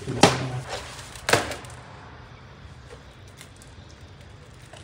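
Two sharp knocks about a second apart, the first the louder, each with a short decay.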